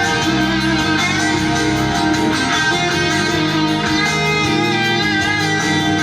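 A song with strummed guitars and bass playing from an FM radio station through a homemade amplifier and speakers salvaged from a broken Sony stereo, playing steadily at a high volume and sounding clean.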